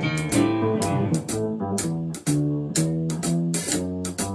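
Small jazz group playing a ballad: upright double bass plucking a melodic line, with piano chords and regular drum strokes keeping time behind it, the trombone silent.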